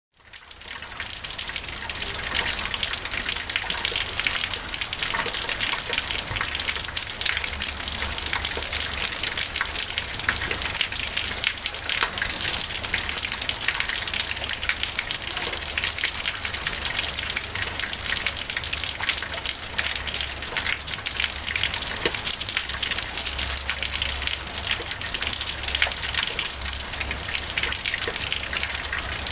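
Small waterfall close up: water pouring from a stone dragon-head spout and splashing steadily, with water trickling down a rock wall and a low rumble underneath. It fades in over the first second.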